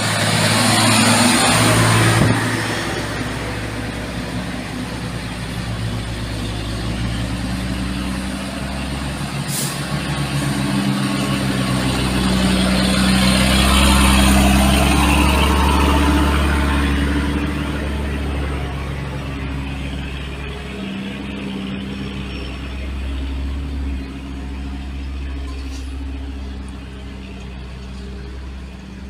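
Engine of heavy earthmoving machinery running under load, its steady low rumble rising to a peak about halfway through and then easing off, with a hiss near the start.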